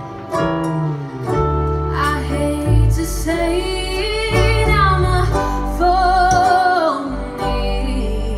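A song played on guitar over a steady bass, with a woman singing from about two seconds in; near the end she holds a note with vibrato.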